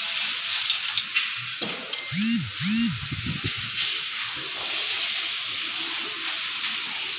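Steady hiss with a few faint metallic clicks, as a valve-clearance adjusting screw and its lock nut on a Mitsubishi 4D56 cylinder head are worked with a screwdriver and ring wrench. About two seconds in there are two short low tones that rise and fall.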